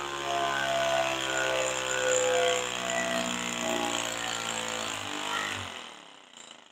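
Compressed-air piston engine of a Science Museum Air Engine Racer kit, driving its propeller from a hand-pumped plastic-bottle reservoir, running steadily. Near the end it dies away and stops as the air in the reservoir runs out.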